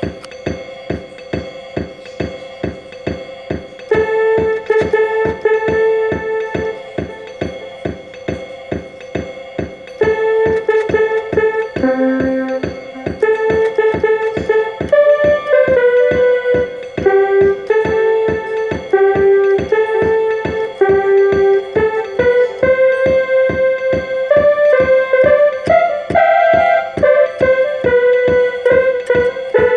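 Electronic keyboard played by hand: a simple melody of held notes over a steady beat. The melody comes in about four seconds in and gets louder at about ten seconds.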